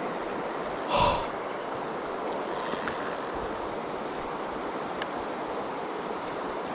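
Mountain stream water rushing steadily, with a short louder sound about a second in.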